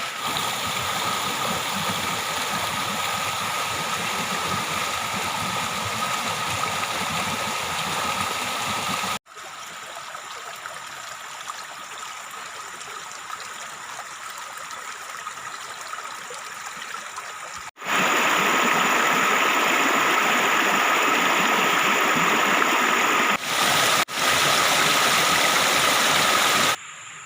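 Steady rushing outdoor noise with a faint steady high tone in it. It cuts off and changes loudness abruptly about a third of the way in, two-thirds of the way in, and near the end.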